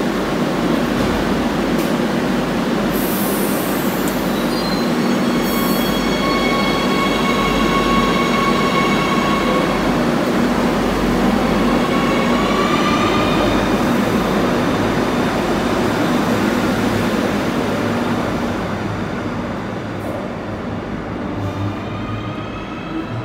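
Madrid Metro train pulling out of an underground station and accelerating away. Its electric traction motors whine in rising tones that step up twice, over the noise of the wheels on the rails. There are a couple of short hisses about three and six seconds in, and the noise fades as the train clears the platform near the end.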